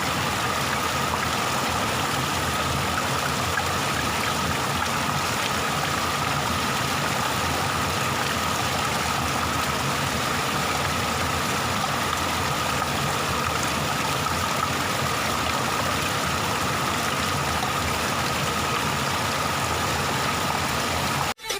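Waterfall: a steady, even rush of falling water, cutting off abruptly near the end.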